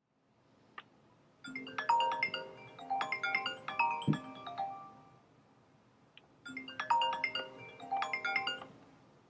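iPhone ringtone for an incoming call: a melodic phrase of chiming notes that plays twice, with a short pause between.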